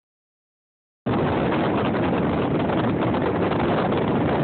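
Steady rushing noise of a pontoon boat under way: wind buffeting the phone's microphone over the boat's motor and water. It starts abruptly about a second in.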